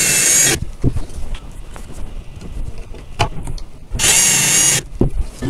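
Cordless drill driving screws into wooden bed rails: two short runs of the motor's whine, one stopping about half a second in and another about four seconds in, with light knocks of handling between.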